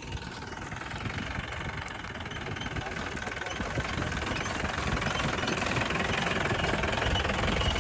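A motor or engine running steadily with a rough, knocking texture, growing gradually louder.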